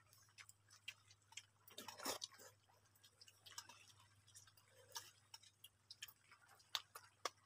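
Near silence with scattered faint clicks and smacks of people eating with their hands from plates.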